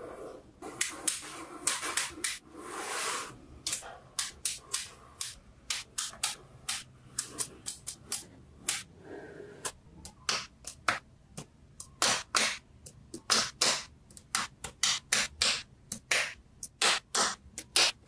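Small neodymium magnetic balls clicking as strips of them snap into place on a sheet of magnet balls: an irregular run of sharp clicks, one to three a second, with a longer rattle about three seconds in.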